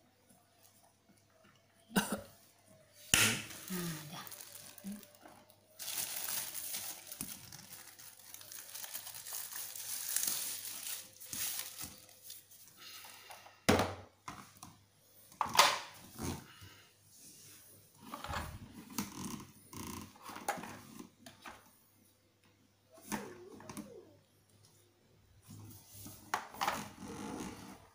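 Knocks and clicks of a canister vacuum cleaner's plastic hose and attachments being handled and fitted. There are sharp knocks about 3 seconds in and twice around the middle, and a few seconds of hissing noise between them.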